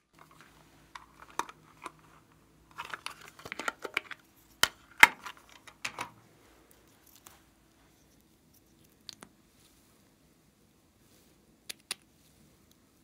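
Small plastic cosmetic bottle and its cap being handled and opened. There is a flurry of light plastic clicks and rustles, with two sharp clicks about halfway through, then a few single ticks later on. A faint steady hum runs under them.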